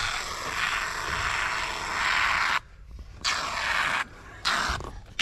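Construction foam hissing out of a foam gun in spurts as the gaps around pipes are filled. One long spurt of about two and a half seconds is followed by two shorter ones.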